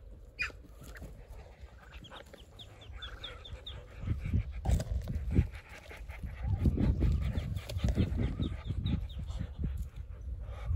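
Muscovy ducklings peeping in runs of short, high, falling chirps, with low, breathy huffing from adult Muscovy ducks close by that is loudest from the middle on.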